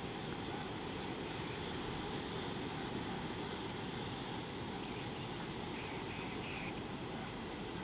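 Steady outdoor ambience: a low wind rumble on the microphone under a constant high hiss, with a few faint short chirps about five to six and a half seconds in.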